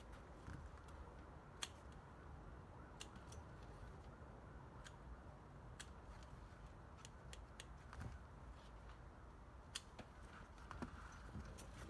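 Hand-picking tomatoes: faint, irregular sharp clicks and snaps as fruit is picked and handled, roughly one every second or two over a low hiss.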